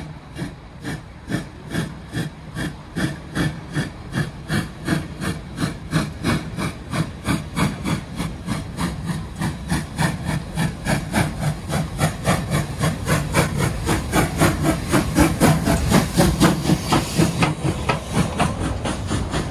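Steam locomotive chuffing as it pulls away under load, its exhaust beats quickening from under two to about three a second and growing louder as it approaches and passes.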